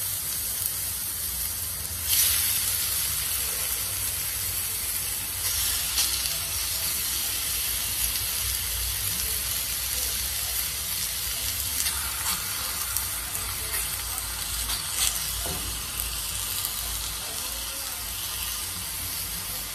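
Thin chicken breast fillets frying in hot oil on a flat comal griddle, a steady sizzle that swells louder several times as more pieces are laid down on the hot surface.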